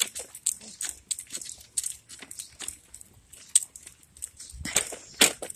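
Footsteps on a paved sidewalk, a quick run of short scuffs and clicks about three a second, mixed with rustling as the handheld camera moves; a louder rustle with a low thump comes about five seconds in.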